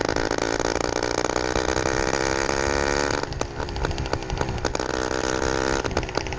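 Small two-stroke motorized-bicycle engine running under way. About three seconds in, it drops back and its pitch wavers, then it picks back up near the end.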